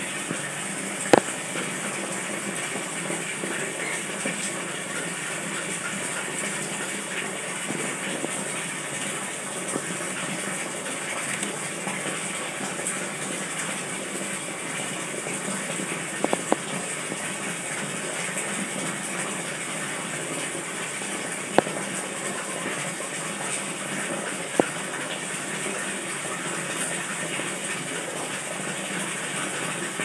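Steady rush of splashing water from an aquarium waterfall, even and unbroken. A few sharp clicks stand out over it, one about a second in and a handful more later on.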